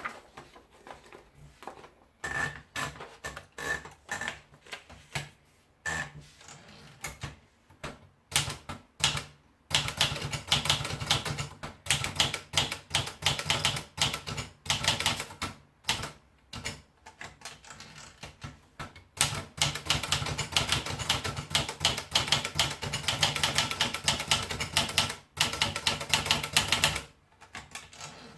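Olivetti Dora manual portable typewriter being typed on. Slow, scattered keystrokes at first, then fast continuous typing from about a third of the way in, with a short slower spell in the middle and a slowdown near the end.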